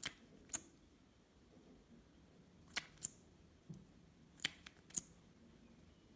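About seven short, sharp clicks or snips, some in close pairs, over faint room tone.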